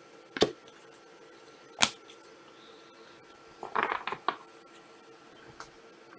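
Glossy trading cards being handled and flipped through on a table: a few sharp taps and a short rustle of cards sliding against each other about four seconds in.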